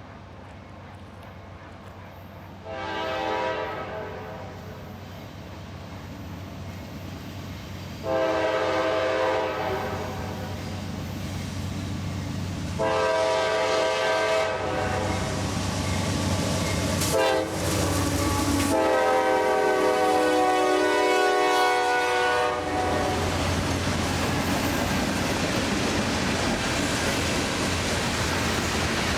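CSX freight locomotive air horn sounding a series of blasts: two long ones, a longer one, a brief toot and a final long blast. Then the train runs past with a steady rumble of wheels on the rails.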